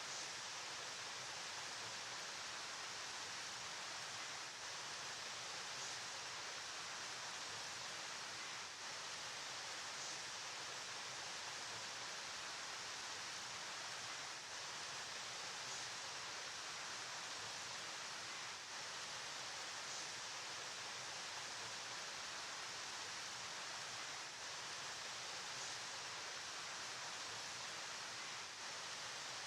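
River water flowing, a steady, even rushing hiss.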